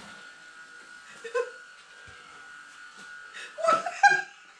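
Faint steady whine of small electric motors in radio-controlled model boats. The loudest sound is a short high-pitched whimpering cry about three and a half seconds in, with a softer one about a second in.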